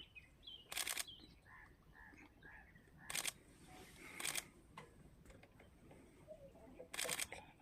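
Camera shutters firing in four short bursts of rapid clicks, with faint bird chirps between them.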